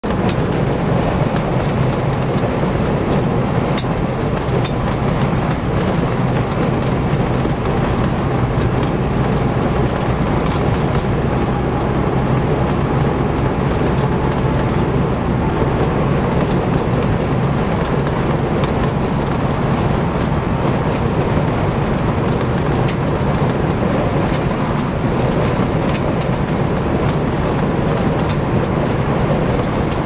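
Steady road and wind noise heard from inside a car's cabin, driving on a highway in high winds and blowing snow, with a low engine and road hum and scattered faint ticks.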